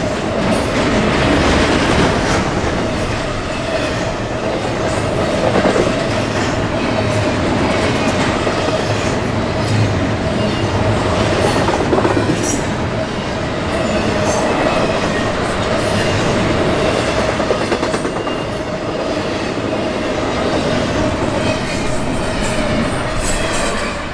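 Norfolk Southern freight cars rolling past close by: wheels clacking over rail joints, with a steady squeal from the wheels.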